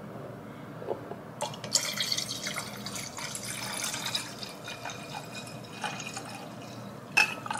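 White wine poured from a glass bottle into a stemless wine glass, the pour starting about a second and a half in and running several seconds as the glass fills. A couple of sharp clicks near the end.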